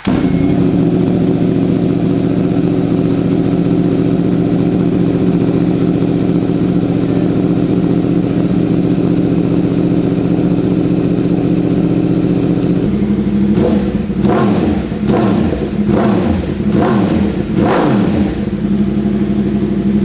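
2018 Yamaha R1's crossplane inline-four, breathing through a Spark Grid-O decat exhaust with its dB killer removed, fires up and idles loud and steady. About two-thirds of the way in come a quick series of five or six sharp throttle blips, each rev rising and falling, before it drops back to idle: a real racket.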